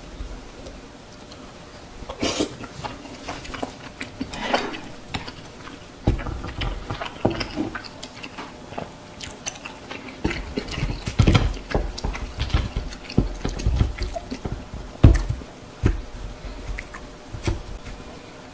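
Close-miked chewing and biting of tteokbokki rice cakes and fried snacks, with scattered clicks of a wooden spoon and chopsticks. The chewing grows heavier and more continuous from about six seconds in.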